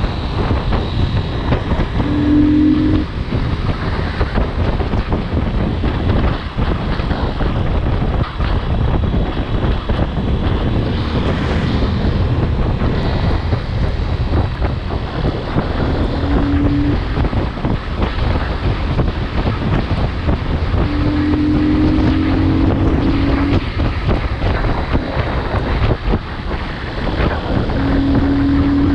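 Wind buffeting a GoPro microphone on a moving motorcycle, with the engine running underneath. A short, steady low hum rises out of the noise a few times.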